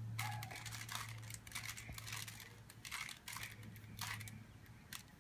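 Rubik's cube layers being twisted by hand: irregular plastic clicks and scrapes in quick runs, over a steady low hum.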